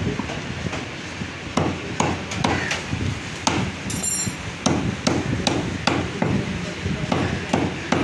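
Butcher's cleaver chopping mutton into small pieces on a round wooden chopping block: repeated sharp chops, about two a second at uneven intervals.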